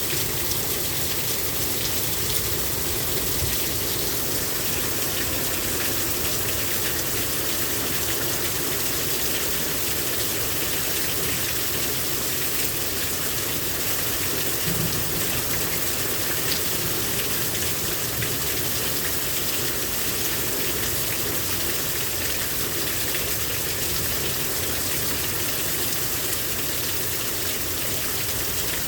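Heavy rain pouring down steadily, an even hiss of rain on surfaces with no change in strength.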